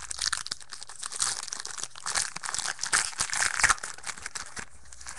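A trading-card pack wrapper being torn open and crinkled in the hands: a dense, crackling rustle, loudest just past the middle, that dies down shortly before the end.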